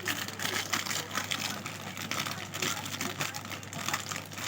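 Plastic snack packets crinkling and rustling as they are handled, a dense run of quick crackles.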